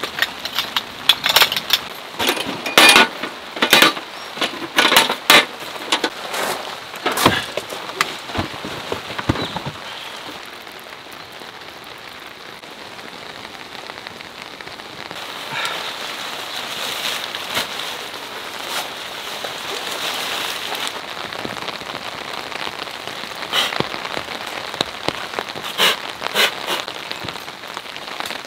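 Steady rain falling, with many loud close drops striking in the first ten seconds, then mostly an even hiss of rain with only a few louder drops.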